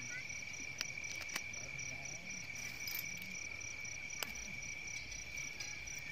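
Crickets trilling in a continuous high steady chorus, with a second insect pulsing rapidly above it. Three sharp small clicks come through as a blue nylon guy rope and its plastic tensioner are handled.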